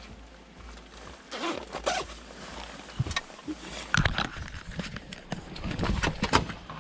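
Irregular scraping and rustling handling noise, like a zipper or fabric being worked, with a few sharp clicks about three and four seconds in.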